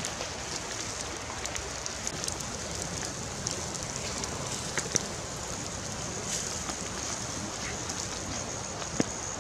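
Fish sizzling on a wire grill over charcoal embers: a steady sizzling hiss with scattered small crackles and pops from the coals and dripping fat, with a couple of sharper pops.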